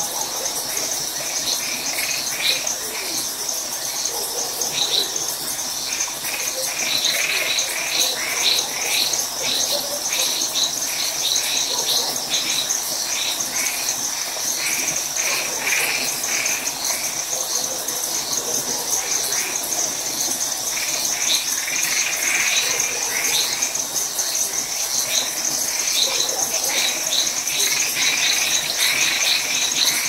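Night chorus of crickets trilling steadily and high, with tree frogs calling over it in clusters of short repeated notes.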